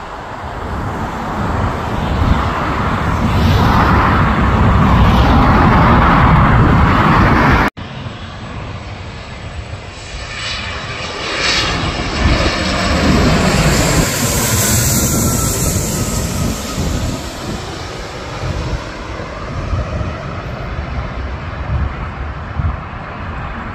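Jet engine noise from aircraft flying low on landing approach. A loud rush builds and cuts off abruptly about eight seconds in. Then a twin-engine business jet passes overhead, its noise swelling with a high whine and fading away.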